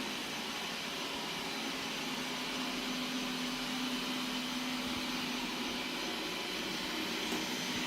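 Qihoo 360 S6 robot vacuum running with a steady whir and a held hum.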